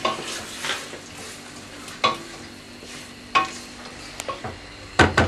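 Squid frying in hot olive oil with sliced peppers in a stainless steel pot, a steady sizzle while being stirred. A few sharp clinks against the pot, several in quick succession near the end.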